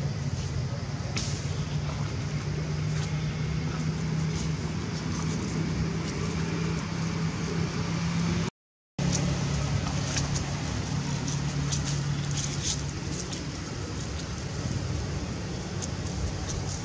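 A steady low motor hum with a held tone, broken by a short gap of silence about halfway through; faint high clicks come and go in the second half.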